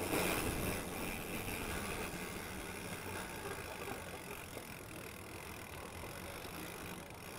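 Mountain bike rolling: tyre noise and rattle of the bike over a dirt trail, growing quieter and smoother once the tyres reach pavement.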